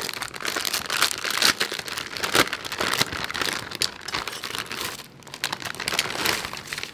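Plastic food packets crinkling and rustling as they are handled, with irregular sharp crackles throughout.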